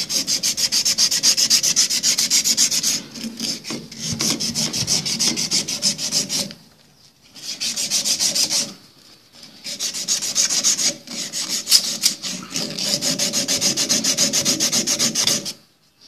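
Emery cloth rubbed rapidly back and forth over a thin iron refrigeration tube, a fast scraping at about five strokes a second, with two short breaks around the middle. The tube is being scoured to clean bare metal for brazing, since any dirt or finger grease left on it would make the joint porous and leak.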